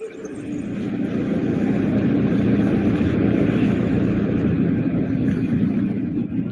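Engine of a Venetian water bus (vaporetto) passing close by: a steady low drone with a hum, building up over the first second or two and easing off slightly near the end.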